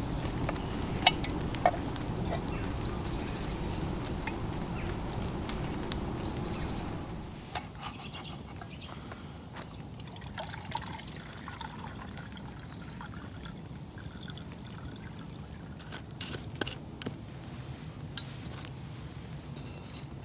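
Water being poured steadily, most likely into a cooking pot to boil, for about seven seconds before it stops. Scattered light clicks and knocks follow.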